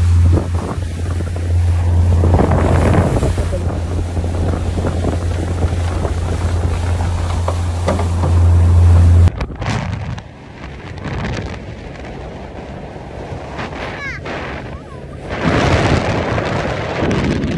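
A small motorboat's engine drones steadily while the boat runs at speed, with wind buffeting the microphone and water rushing past the hull. About nine seconds in the drone cuts off abruptly, leaving quieter wind and water noise that swells again near the end.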